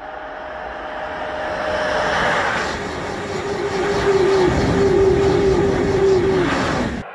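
A TGV high-speed trainset passing at speed: a rush of wheel and air noise that builds to its loudest as the cars go by, with a steady whine that drops in pitch as the train passes. It cuts off suddenly about seven seconds in.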